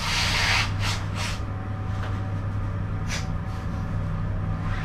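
Steady low hum of an elevator car running, with a short loud hiss at the start and a few fainter hisses later.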